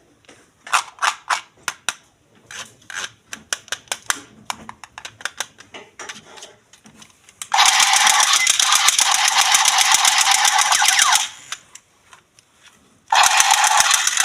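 Plastic clicking and tapping from handling a toy. Then a battery-powered Spider-Man toy gun fires a loud, rapid-fire rattling burst of about three and a half seconds, and a second burst starts near the end.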